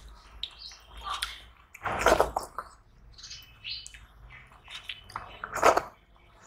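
Fingers mixing rice into wet curry on steel plates, with wet squelching and scraping and short high squeaks. Two louder wet squelches come about two seconds in and again near the end.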